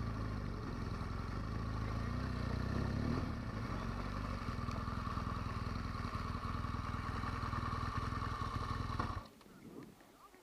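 BMW R1200GS boxer-twin motorcycle engine running steadily, stopping abruptly about nine seconds in.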